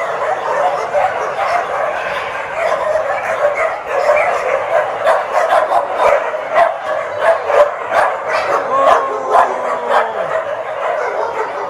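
A large pack of kenneled dogs barking together, a dense overlapping chorus that turns into louder, sharper barks from about four seconds in. Near the end, one long whining cry slides down in pitch over the barking.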